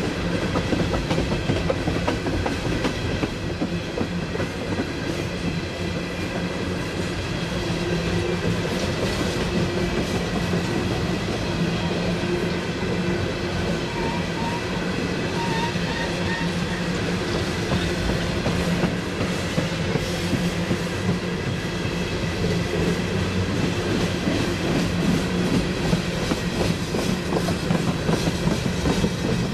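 Norfolk Southern freight train of empty hopper cars rolling past upgrade, wheels clicking steadily over the rail joints with a constant low hum underneath.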